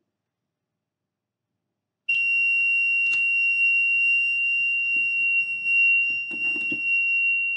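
The homemade burglar alarm's round white piezo buzzer sounding: a continuous high-pitched tone that starts suddenly about two seconds in and keeps going. A few light knocks of the board being handled come over it, around three seconds in and again near the six-and-a-half-second mark.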